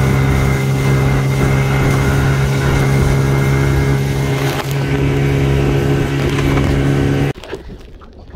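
Suzuki outboard motor running at a steady cruising speed, a constant hum under the rush of water and wind as the boat moves. About seven seconds in it drops away abruptly to quiet water sounds with a few small knocks.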